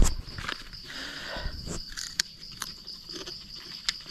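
Insects trilling steadily at a high pitch in the forest, with a few sharp light clicks scattered through.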